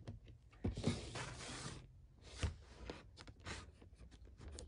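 Scissors snipping and scraping at the tape on a cardboard box, with sharp clicks and a stretch of scratchy rustling about a second in.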